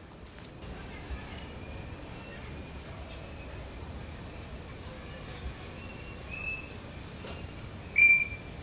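Crickets chirping in a steady, fast pulsing trill that comes up louder about half a second in. Near the end a short, loud high-pitched chirp stands out.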